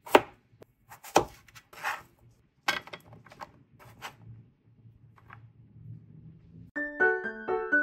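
Kitchen knife chopping a peeled potato on a plastic cutting board: two sharp chops in the first second or so, then lighter knocks and scrapes as the chunks are pushed off the board into a tray. Piano music comes in near the end.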